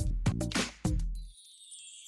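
Background music: a steady beat with bass and drum hits that drops out about a second in, leaving only a high shimmering layer.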